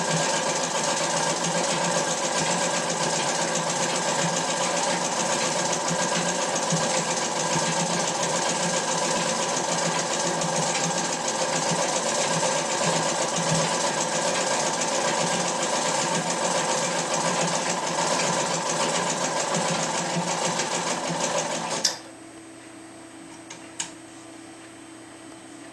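Vintage black sewing machine running continuously as it stitches heavy fabric. It stops abruptly near the end, followed by a couple of faint clicks from the machine.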